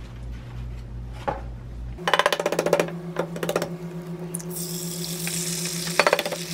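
Eggs cracked into a pan of hot beef tallow: a run of quick clicks and taps from the shell, then the fat sizzling steadily once the egg drops in about halfway through, with a sharp crack of the next egg on the pan near the end.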